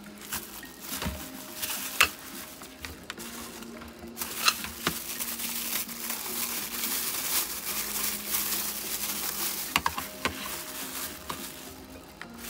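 Thin plastic packaging bags crinkling and rustling as the mask's filter canisters are unwrapped, with a few sharp knocks from the hard canisters being handled.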